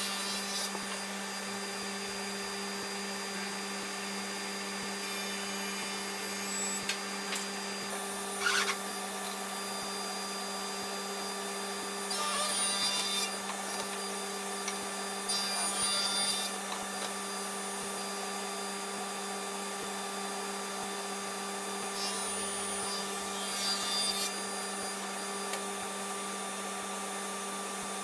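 Table saw and its overhead dust collection running, a steady hum with a rush of air. Several short bursts of sawing and scraping noise come as hardwood stock is handled and fed through the blade.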